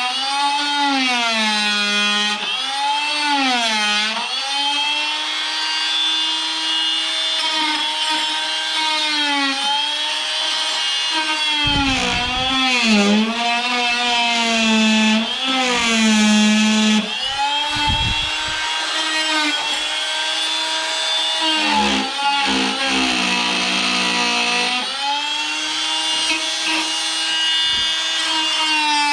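Oscillating multi-tool running continuously as its blade trims small nubs off a piece of holly. The motor's whine drops in pitch each time the blade bites into the wood and climbs back as it comes free, with a few low knocks near the middle.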